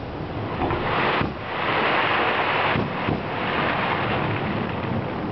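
Aerial fireworks going off in quick succession: a continuous rumbling wash of booms and crackle, with sharper bangs about a second in and again around three seconds in.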